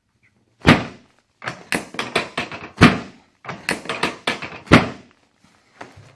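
Chiropractic drop table's hip section dropping three times, about two seconds apart, each with a loud clunk, with clusters of lighter knocks and clatter in between.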